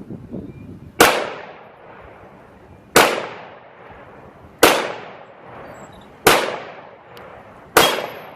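A CZ P10-C 9mm pistol fired five times at a slow, steady pace, one shot every one and a half to two seconds, each crack followed by a short echoing tail. Wind rumbles on the microphone before the first shot.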